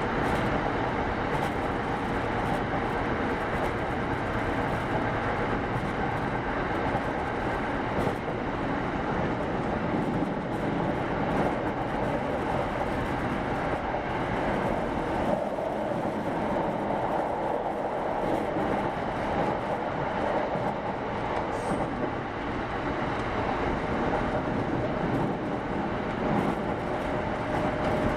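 Kintetsu 8810 series electric train running, heard from inside the car: a steady rumble of wheels on rail with faint steady tones and a few sharp clicks.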